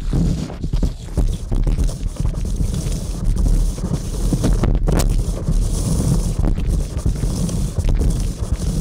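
Handling noise from a microphone being hauled up out of a borehole: a continuous low rumble from the microphone and its cable rubbing along the bore, with scattered knocks and one sharp knock about five seconds in.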